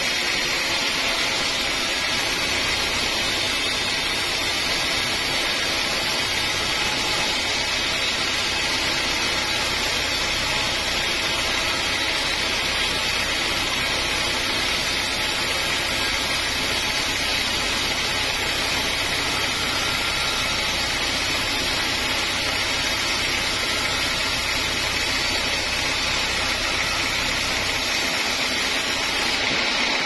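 Band sawmill blade cutting along a dense-grained teak log: a steady, unbroken hiss of the blade in the wood over a low hum from the saw's drive.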